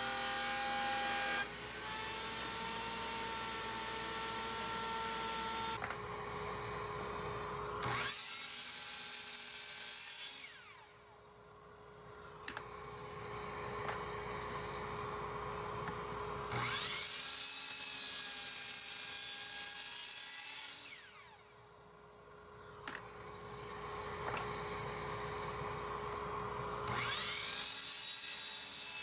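A router in a router table running, then a sliding miter saw's motor repeatedly spinning up, cutting and winding down with a falling pitch, about three times, over a steady hum.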